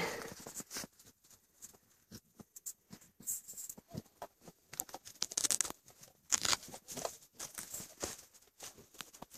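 Dog snuffling with its nose in the snow: irregular short sniffs and puffs, coming in quick clusters in the second half, with light rustling of snow and dry stems.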